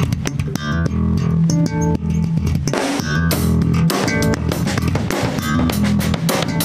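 Electric bass guitar playing a run of low notes together with a drum kit keeping a steady beat, a rock band rehearsing a groove.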